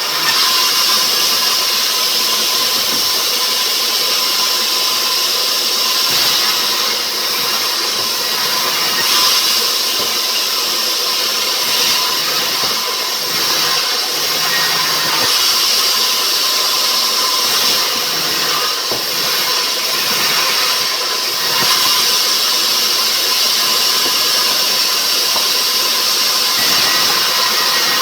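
Sawmill machinery running steadily at a constant loud level, a dense high-pitched noise with a faint steady hum through it.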